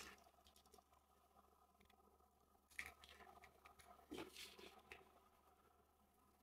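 Near silence with a few faint clicks and scrapes of a small screwdriver on a Joy-Con's tiny screws and plastic shell.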